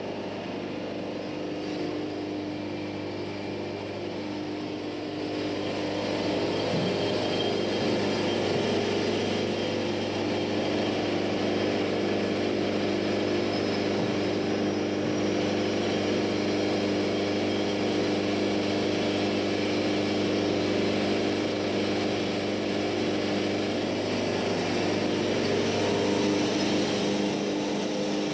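An engine running steadily throughout, growing louder about six seconds in and holding there.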